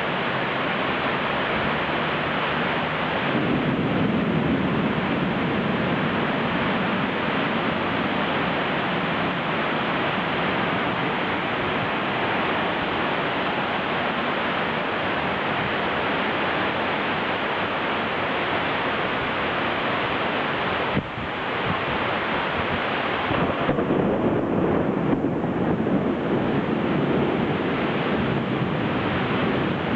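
Heavy rain falling steadily, with a deeper rumble swelling a few seconds in and again through the last third.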